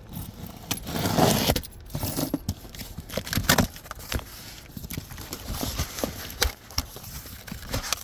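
Plastic wrapping being torn and crinkled off a boxed firework cake by hand, with irregular rustling and light knocks and clicks from handling the box.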